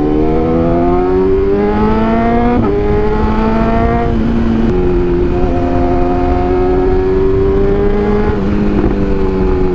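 BMW S1000R's inline-four engine through a shorty Akrapovič titanium full-system exhaust, pulling under acceleration. The pitch climbs, steps down about two and a half seconds in and again near five seconds as the rider shifts up, then holds steadier and eases off near the end.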